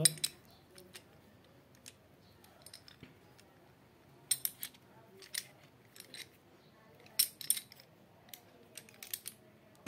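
Scattered sharp metal clicks and scrapes of a bearing puller being fitted and worked on a fan motor's worn bearing, with a few louder clusters about four seconds and seven seconds in.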